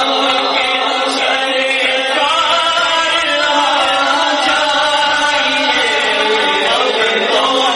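A man's voice singing a naat (Urdu devotional song in praise of the Prophet) into a microphone, in long, drawn-out notes that waver and glide in pitch without a pause.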